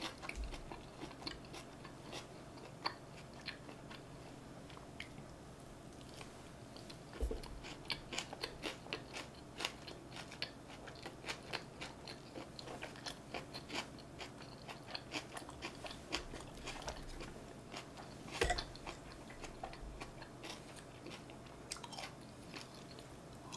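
Close-miked mouth sounds of chewing and biting soft food, here North Korean tofu rice (fried tofu pockets stuffed with rice and chili sauce): a steady run of short wet clicks and smacks, with a louder bite about eighteen seconds in.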